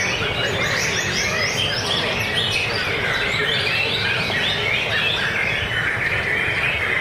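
Many caged white-rumped shamas (murai batu) singing at once, a dense chorus of overlapping quick whistles and chirps without a break.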